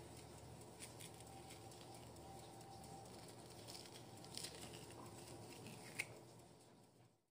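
Faint scraping and soft clicks of a metal spoon hollowing out halved zucchini, over a low steady hum. One sharper click about six seconds in, then the sound fades out.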